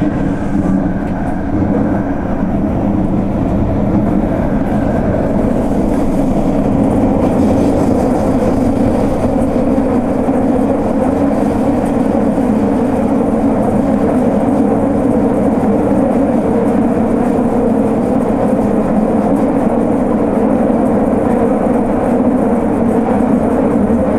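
Fukuoka City Subway Nanakuma Line linear-motor train running through a tunnel, heard from inside its rear cab: a steady, loud rumble of wheels on rail and tunnel noise, building slightly over the first several seconds and then holding.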